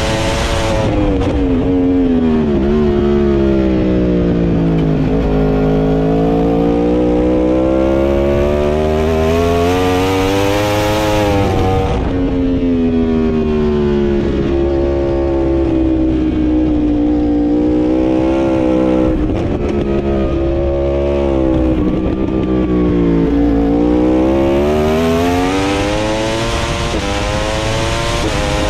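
Onboard sound of a racing superbike's engine at full race pace. The note drops as the rider brakes and shifts down into corners and climbs again under hard acceleration out of them. This happens several times, with a longer climb toward the end.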